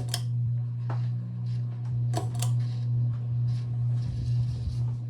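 Evergo 52-inch hugger ceiling fan running on medium: a steady, loud motor hum with irregular light clicks, a little chatter from its bearing.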